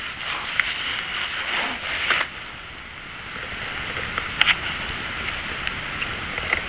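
Steady hiss of outdoor night ambience, with a few faint clicks and a brief rustle about two seconds in.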